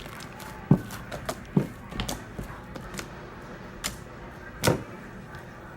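Shaving-cream slime being kneaded and squeezed by hand, giving about half a dozen separate wet pops and squelches, the loudest near the start and about three-quarters of the way through.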